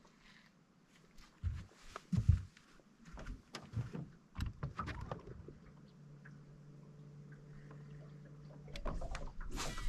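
Knocks and thumps of fishing gear being handled in a boat, then a steady low hum for about three seconds and a sharp hiss near the end.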